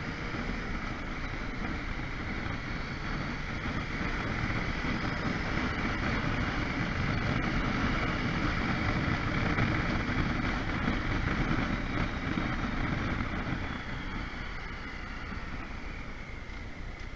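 Motorcycle riding in traffic, heard from the rider's seat: engine running under the rush of wind and road noise. It grows louder through the middle and eases off near the end.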